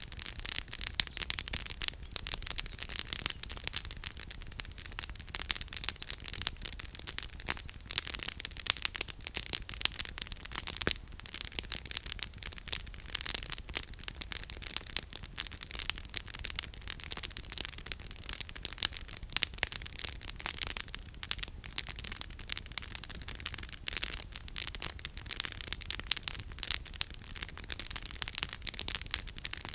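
Burning firewood in a campfire, crackling and popping continuously with many sharp pops.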